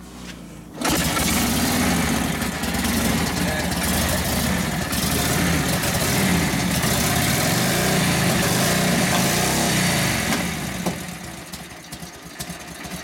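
1942 Harley-Davidson WLA's 45 cubic inch flathead V-twin catching about a second in, unprimed, and running fast and steady, then dropping in revs and loudness near the end.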